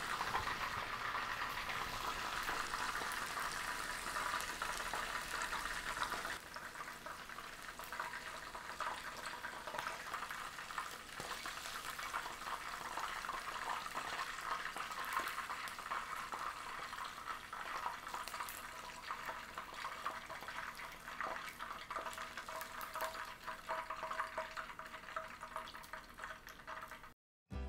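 Chicken karaage deep-frying in oil at about 190°C, the final high-heat frying that crisps the coating: a dense, steady sizzle and crackle. About six seconds in it turns quieter, with fewer pieces left in the oil.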